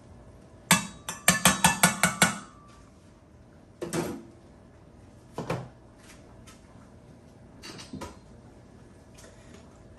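A metal utensil tapped quickly against the rim of a bowl, about eight sharp knocks in a row a second or so in, shaking off butter. A few separate knocks and clinks follow.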